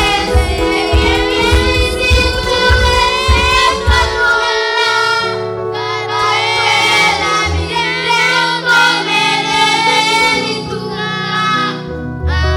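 Gospel praise and worship music: voices singing over a band with a steady drum beat. The beat drops out about four and a half seconds in, leaving the singing over held low notes, and comes back right at the end.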